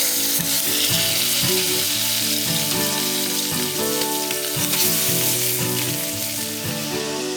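Food sizzling as it fries in a hot pan, a steady loud hiss that begins with an abrupt cut just before and thins a little near the end, over acoustic guitar background music.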